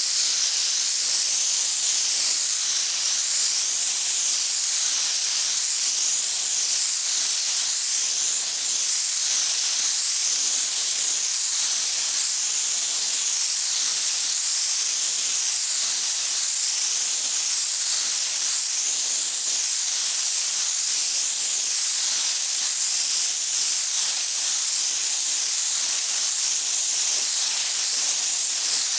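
Air spray gun hissing steadily as it sprays primer, the hiss swelling and easing a little about every two seconds.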